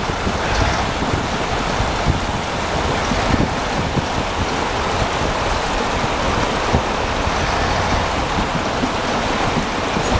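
Wind buffeting the microphone in uneven low gusts over a steady rush of glacial meltwater.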